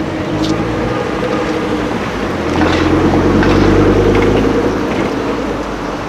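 Sports car engine running at a steady, unrevved speed, getting louder from about two and a half seconds in, then easing off near the end.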